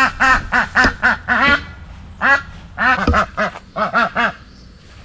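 Domestic ducks quacking: a rapid run of about four quacks a second, then after a short pause several shorter bouts of quacks.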